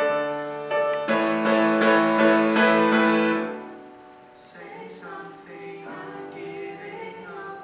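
Grand piano playing slow, sustained chords in the song's closing bars. The loud chords ring out and fade about three and a half seconds in, then softer single notes follow.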